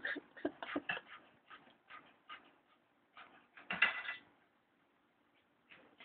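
West Highland white terrier worrying and chewing at its dog bed: a run of short scuffling, snuffling noises, with a louder cluster about four seconds in.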